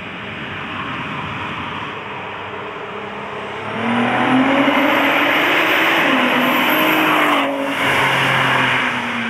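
Supercharged VW Golf V R32's 3.2-litre VR6 accelerating hard as it passes, getting much louder about three and a half seconds in, with a thin high supercharger whine climbing with the revs. There is a brief gap near the end, at a gear change, before it pulls on.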